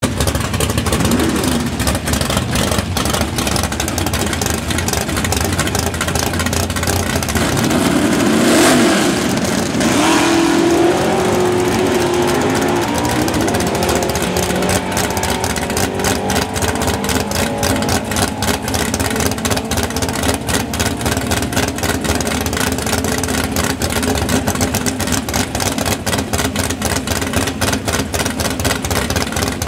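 Drag-race Chevy Nova SS engine running at the starting line with a rapid, even pulse. It swells louder about eight to eleven seconds in and then settles back.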